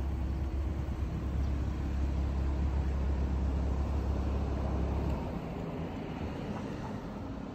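Road traffic noise with a deep, steady rumble that eases off about five seconds in.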